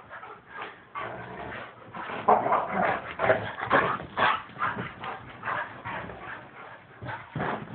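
Two huskies play-fighting: a fast, irregular run of short dog vocal noises mixed with scuffling, with no pause.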